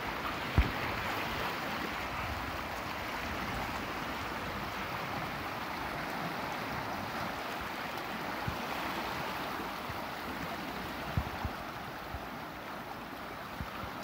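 Steady rushing of the Narayani River in flood, its fast water running past close by. There is a sharp thump about half a second in and a couple of fainter knocks later.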